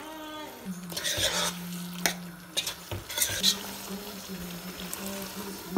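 A spoon stirring and scraping beef curry in a cooking pot, with a sizzling hiss about a second in and several sharp clicks of the spoon against the pot. A low steady hum runs underneath.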